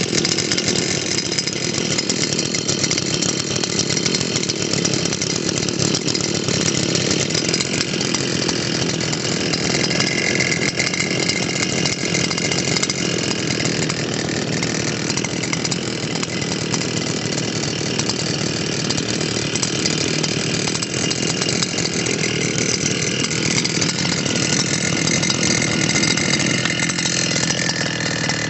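A small two-stroke engine, of the string-trimmer kind, running steadily without revving.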